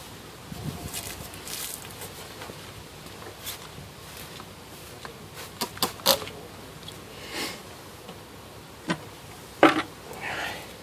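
Honeybees buzzing around an open hive while wooden hive frames are handled, giving scattered sharp clicks and knocks. The loudest knock comes near the end, followed by a brief rustle.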